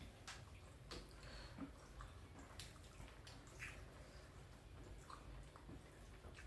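Faint wet clicks and smacks of someone chewing food, scattered irregularly, over a low steady hum.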